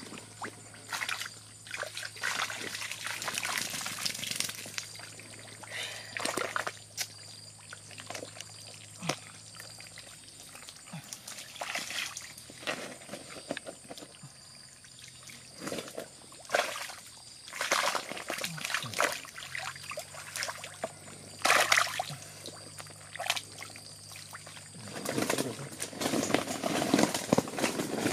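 Shallow muddy water splashing and sloshing in irregular bursts as bare feet wade through it and hands grope in the mud for fish, with steadier churning near the end.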